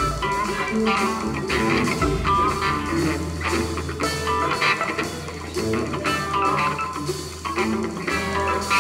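Jazz big band playing a funk groove live, with electric guitar and electric bass over drum kit.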